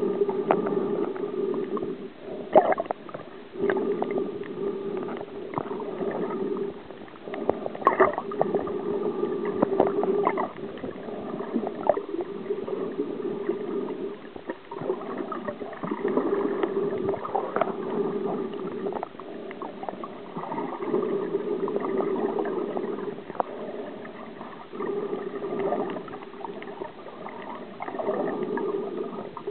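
Muffled water sound from a camera in and around the sea while snorkeling: gurgling and sloshing with short crackles. A steady hum swells and drops away every few seconds.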